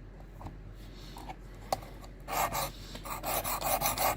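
Sharpening stone on a Worksharp Precision Adjust rod stroked quickly back and forth along a knife edge: a rhythmic rasping of about four strokes a second that starts a little past halfway, after a couple of seconds of faint clicks.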